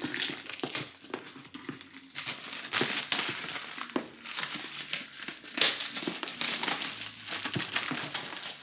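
Plastic shrink wrap being peeled and torn off a cardboard product box, crinkling and crackling irregularly with many small sharp crackles.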